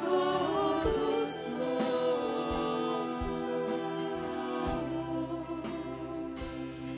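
Devotional song: a voice sings over sustained instrumental accompaniment. The sung line ends about three seconds in, leaving held instrumental chords.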